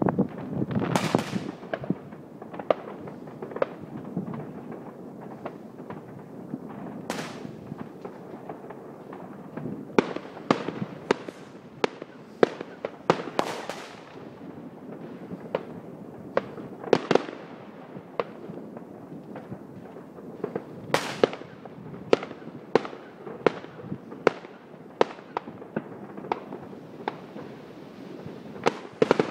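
Fireworks going off: many irregular sharp bangs and cracks, several a second at times, with a few longer whooshing sounds among them.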